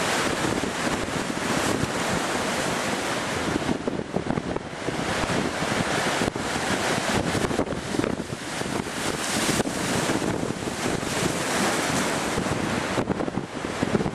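Strong wind buffeting the microphone over the steady rush of rough sea and breaking surf, rising and falling in gusts.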